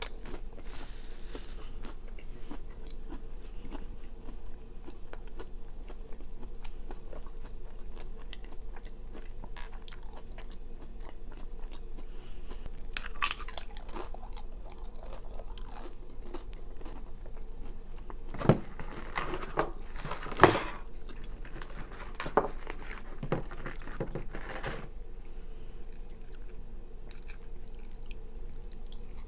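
Close-miked chewing and crunching of food, soft through most of it, with a few crunchy bites just before the middle and a run of louder, sharper crunches about two-thirds of the way through. A steady low electrical hum lies underneath.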